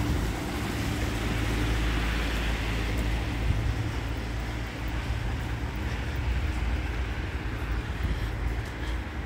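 Steady street traffic noise: a low rumble with the hiss of tyres on the wet road, easing slightly toward the end.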